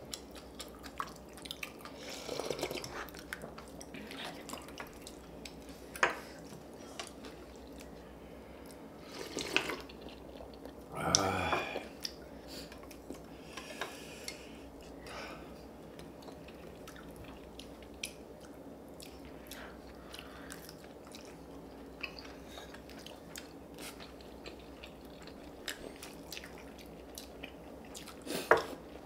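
A meal being eaten: chewing, with frequent short clicks of utensils against bowls and plates. A brief louder sound comes about eleven seconds in.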